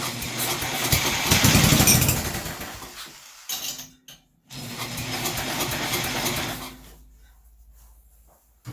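Small snowblower engine cranked twice, firing briefly on starting spray and dying away each time. It will not keep running because the carburetor is not picking up any fuel.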